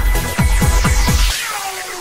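Electronic dance music with a fast, heavy kick-drum beat that drops out about a second and a half in, leaving falling, sweeping tones that fade.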